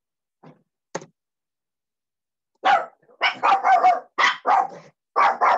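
A dog barking: a quick run of short, loud barks that starts about two and a half seconds in, after a couple of faint clicks.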